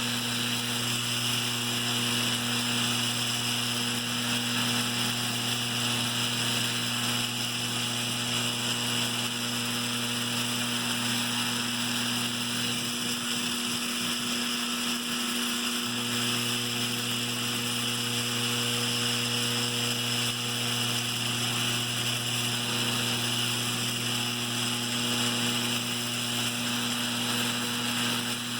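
Lionel 3656 cattle corral's vibrator mechanism buzzing steadily as it shakes the cattle figures along its platform, the low part of the buzz wavering for a few seconds midway.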